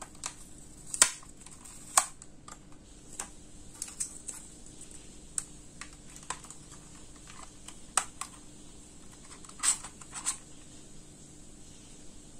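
Irregular sharp plastic clicks and taps from hands handling a DJI Mini 2 drone, working its arms and body and taking out its battery. The loudest clicks come about a second and two seconds in, with a close pair near the end.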